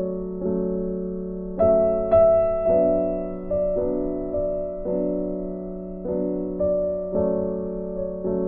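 Soft background music on a piano-like keyboard: slow chords struck about every half second, each ringing and fading before the next.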